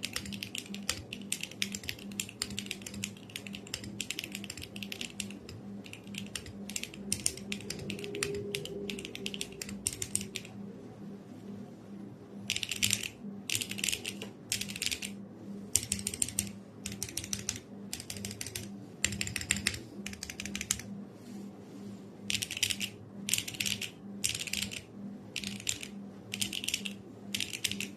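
Typing on a Qwertykeys Neo 80 mechanical keyboard with a polypropylene plate and HMX Cilantro tactile switches. Fast, continuous keystrokes for about ten seconds, then after a short pause, bursts of keystrokes separated by brief gaps.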